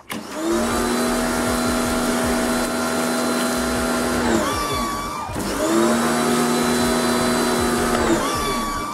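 Dedra 1900 W electric pressure washer's motor and pump running under load while spraying, in two runs. It winds down about four seconds in, starts again a second later, and winds down again near the end, stopping as the gun's trigger is released.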